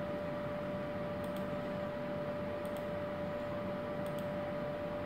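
Steady background hum with a constant mid-pitched tone, and faint double clicks about every second and a half.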